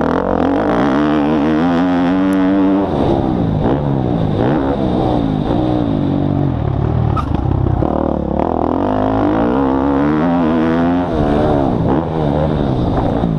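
Motocross dirt bike engine heard from on board, revving hard, its pitch repeatedly climbing under throttle and dropping back as the rider shifts and backs off through the turns.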